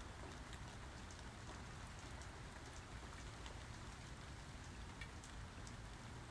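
Steady rainfall, with a continuous hiss and many scattered individual drops ticking on surfaces; no thunder.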